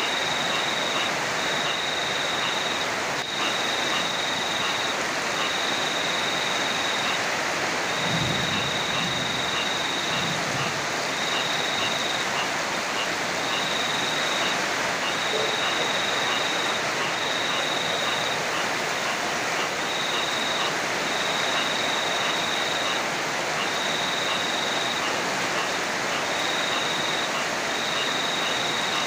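Heavy rain falling in a steady hiss. A high thin trill comes and goes in stretches of a second or two, and a low rumble of thunder sounds briefly about eight seconds in.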